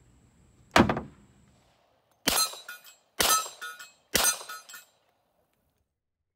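Springfield XDM 10mm pistol firing three shots about a second apart, each with a short echoing tail. Before them comes a single heavy thud.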